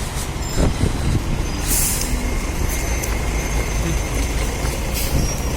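City street traffic: a steady low rumble of passing vehicles, with a brief loud hiss a little under two seconds in.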